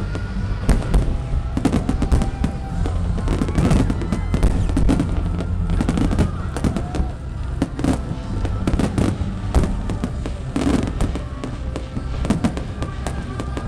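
Aerial fireworks display: a dense, continuous barrage of shell bursts, bangs following each other in quick succession with crackling in between, over music.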